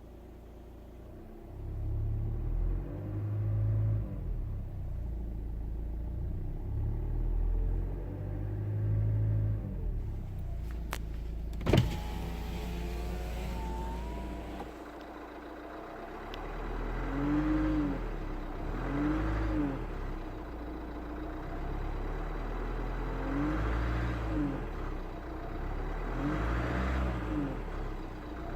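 Renault Scénic 1.6 dCi 130 four-cylinder turbodiesel, cold, idling and blipped about eight times, each rev rising and falling back. These revs carry the noise on acceleration that the owner hears only with the engine cold. A single sharp click comes about midway.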